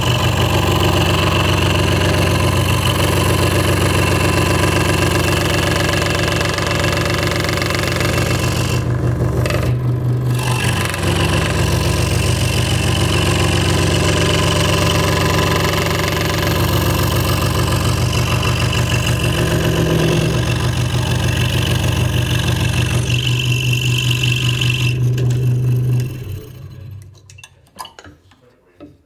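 Hegner Multicut 2S scroll saw running, its reciprocating blade cutting through wood with a steady hum and rattle. It stops about three seconds before the end.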